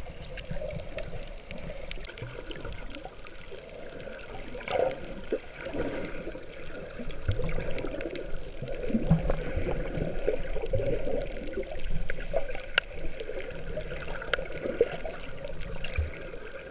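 Muffled water sloshing and bubbling, picked up by a camera held underwater while snorkeling, with scattered faint clicks.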